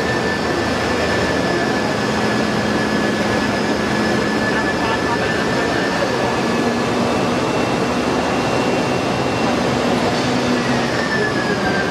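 Industrial scrap shredder running, a loud steady mechanical din with a faint high whine that drops slightly in pitch near the end.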